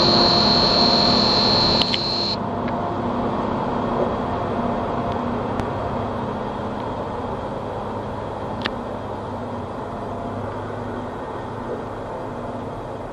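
Diesel engine of a yellow rail track maintenance machine running as it moves away along the line, slowly fading as it recedes. A high steady whine stops abruptly about two seconds in, and a few faint clicks come later.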